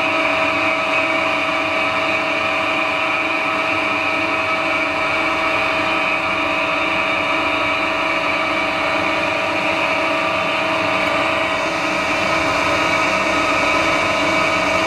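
Metal lathe running steadily just after start-up, its chuck spinning at speed with a steady whine of several even tones.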